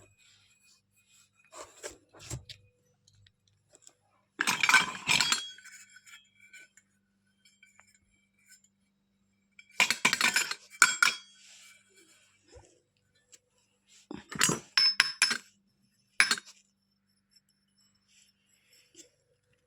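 Miniature toy kitchen pieces clinking and rattling as they are handled, in about five short bursts with pauses between, the loudest about four and a half seconds in and again about ten seconds in.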